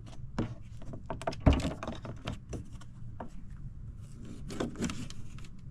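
Knocks, clicks and rattles of a wooden tool chest being handled while a stiff compartment is worked at to get it open, with one louder thump about one and a half seconds in.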